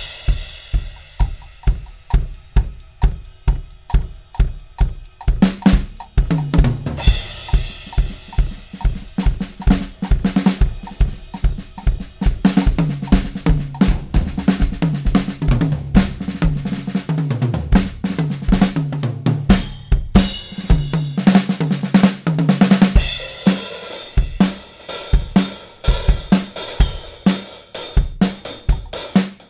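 Gretsch acoustic drum kit played in a steady groove: bass drum, snare, hi-hat and cymbals. The playing is sparser for the first six seconds, and the cymbals wash much more heavily from about twenty-three seconds in.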